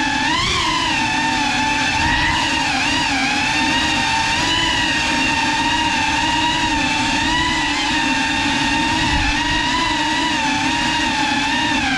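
Motors and ducted propellers of a GEPRC Cinelog 35 FPV cinewhoop drone whining at a high, buzzing pitch that wavers with throttle, with brief dips and rises about half a second in and about three seconds in.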